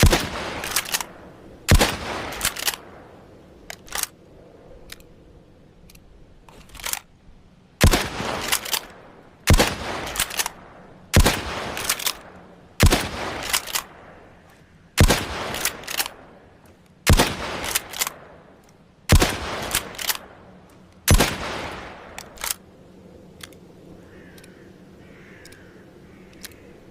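Mosin-Nagant bolt-action rifle in 7.62×54mmR firing about ten single shots, mostly about two seconds apart with a longer pause after the second shot. Each shot is followed by a few sharp clicks of the bolt being worked.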